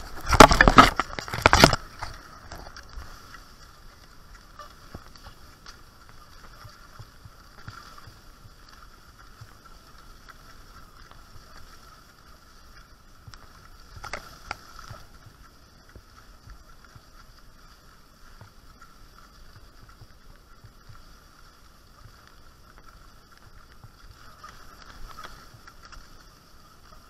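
Skis gliding along a packed snow trail with a faint, steady hiss, and small bumps about halfway through and near the end. In the first two seconds comes a loud burst of rustling and knocking close to the microphone.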